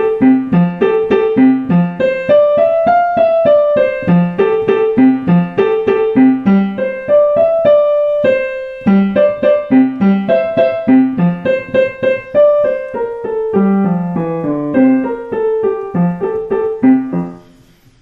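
Digital piano playing a simple two-hand practice piece: a steady run of short notes, an alternating lower part under a higher melody, with a short break a little before halfway. The playing stops about a second before the end.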